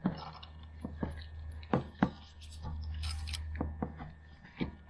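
Irregular metallic clicks and clinks of hand tools working the oil filter housing cap on a Jeep 3.6L engine, about ten sharp knocks with short scraping sounds between them, over a low steady hum.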